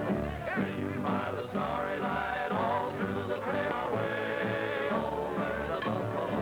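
Country-western music with a group of voices singing over instrumental accompaniment, heard as an old, narrow-band film soundtrack.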